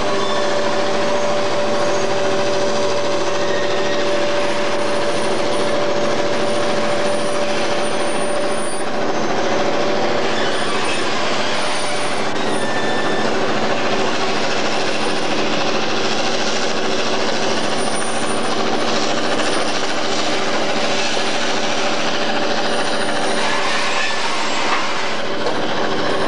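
Train of covered hopper wagons rolling slowly past on yard track: a steady rattle and clatter of wheels on rail, with a held tone that fades out about halfway through.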